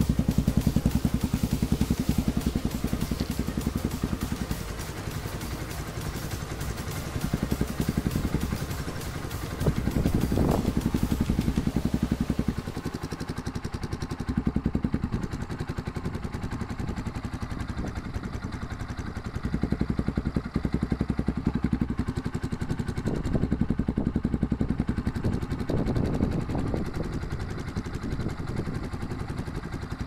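Motorstar Xplorer Z200II's SOHC engine running through an aftermarket slip-on exhaust, idling steadily with the note rising in short throttle blips, about a third of the way in and again past two-thirds.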